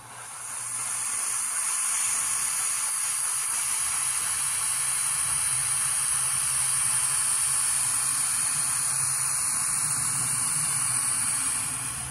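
Sound-decoder steam effect from an Nn3-scale Rio Grande steam locomotive model, played through its small onboard speaker: a steady hiss of escaping steam that builds up in about a second, holds, and drops away near the end.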